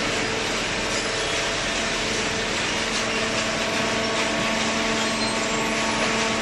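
Waste paper baler machinery running: a steady mechanical hum with an even hiss over it, unchanging throughout.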